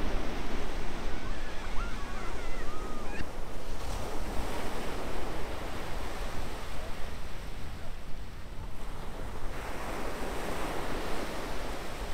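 Ocean surf breaking and washing up onto a sandy beach, a steady wash that swells as each wave comes in, about four seconds in and again near the end.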